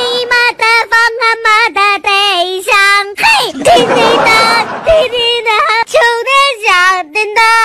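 A high-pitched, childlike singing voice in quick, wavering notes.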